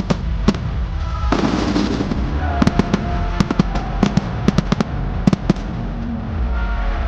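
A fireworks display going off in a rapid, irregular string of sharp bangs, a few a second, over a continuous crackling rumble.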